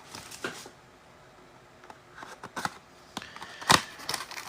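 Trading-card hanger boxes being handled: faint rustles and light taps, with one sharp snap or knock a little before the end.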